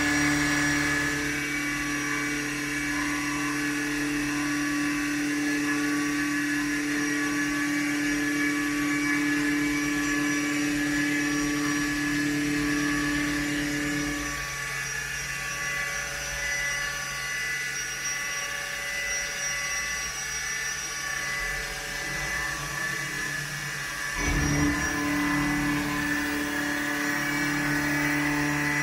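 2001 Haas VF-2B CNC vertical mill spindle driving an end mill through a metal workpiece, a steady machine whine mixed with cutting noise. Its strongest tone drops out about halfway through, then comes back after a short louder stretch near the end.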